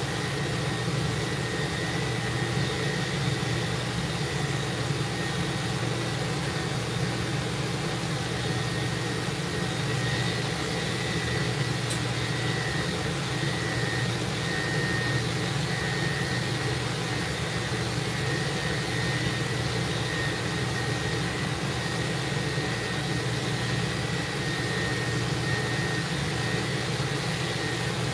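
Steady machine drone with a low hum and a thin, constant high whine, from the running equipment of a mobile grooming van.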